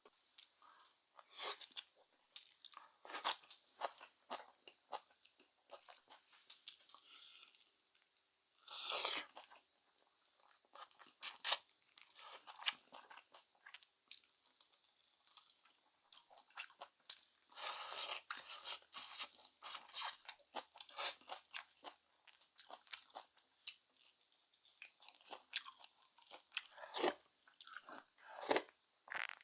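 A person eating close to the microphone: irregular chewing and crunching with sharp mouth clicks, louder crunches coming in clusters.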